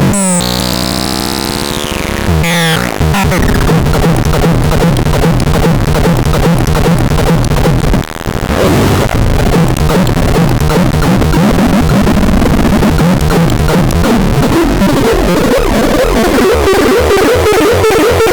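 ADEPAX synthesizer playing: gliding pitched tones sweep down and back up for the first couple of seconds, then give way to a dense, harsh noisy drone over a pulsing low note, which drops out briefly about eight seconds in.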